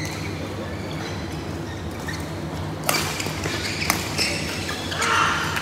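Badminton rally: sharp racket hits on the shuttlecock, several spaced strokes starting about three seconds in, over a steady low hum of the hall.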